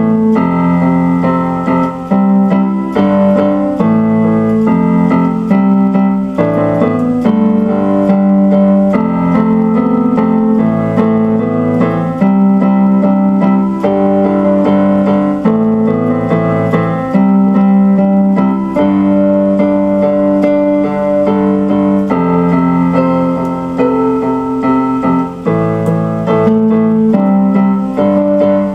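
Instrumental piano music played on an electronic keyboard: held chords that change every second or two, with a melody above them.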